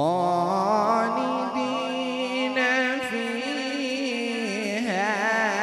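Melodic Quran recitation (tilawat) by a single male qari, amplified through a microphone. He draws out long, ornamented notes with a wavering pitch in one unbroken phrase.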